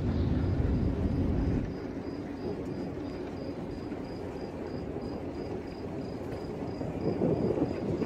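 Outdoor ambience: a low rumble that drops away after about a second and a half, leaving a steady hiss. Through it an insect chirps, a thin high note repeating about three times a second.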